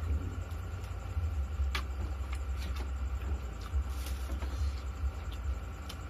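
Metal spoon and fork clicking lightly against a ceramic bowl a handful of times while eating, the clearest click a little under two seconds in, over a steady low rumble.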